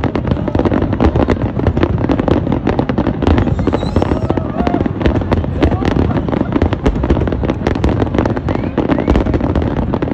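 Aerial firework shells bursting in a dense, rapid barrage, the bangs and crackles following one another so closely that they run together without a pause.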